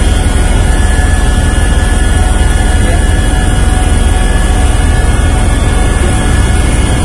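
Helicopter in flight heard from inside the cabin: a loud, steady low drone from the rotor and engine, with thin, steady high-pitched whines above it.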